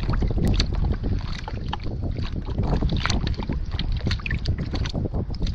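Wind buffeting the microphone in a steady low rumble, with irregular small slaps and ticks of choppy shallow water lapping against a kayak hull.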